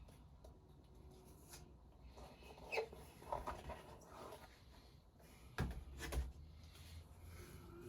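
Quiet handling noises, with two sharp thumps about five and a half and six seconds in, and a few faint short pitched sounds a little earlier.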